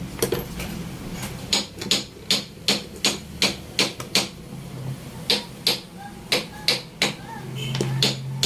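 A string of sharp knocks, like hammer taps, coming irregularly at about two or three a second, over a low steady hum.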